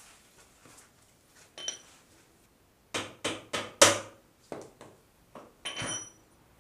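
Mallet blows on a metal bar held against a motorcycle's rear wheel axle to drive the axle out: four quick knocks about three seconds in, the last the loudest. Lighter clicks follow, and a ringing metal clink of the tool comes once near the start and once near the end.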